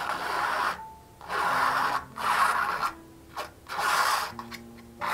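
Palette knife spreading thick acrylic paint across a stretched canvas: about five rough scraping strokes, each under a second long, with short pauses between them.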